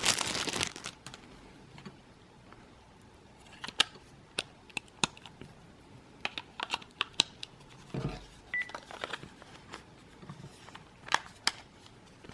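Scattered sharp plastic clicks of a Panasonic KX-PRS110 cordless phone handset being handled and its buttons pressed to power it on, after a second of rustling at the start. A brief high beep sounds about eight and a half seconds in.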